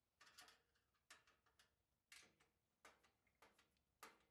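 Faint metallic clicking and ticking as a screwdriver and nut driver turn a small screw and nut on a powder-coated steel doll crib frame, in irregular little clusters of clicks about once or twice a second.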